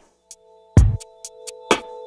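Electronic background music: held synthesizer notes with a deep kick drum hitting about once a second.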